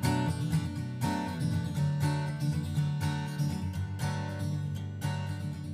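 Background music: strummed acoustic guitar, with a chord struck about once a second and left ringing.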